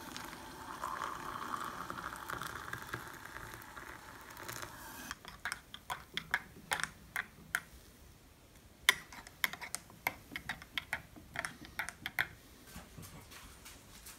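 Water poured in a steady stream from a kettle into a ceramic mug of ground coffee for about five seconds. Then a metal spoon stirs the coffee, clinking sharply and irregularly against the mug's rim and sides, with a few louder knocks.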